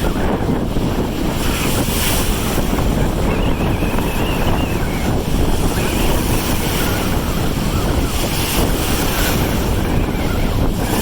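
Strong wind buffeting the microphone, with big lake waves breaking and surging underneath.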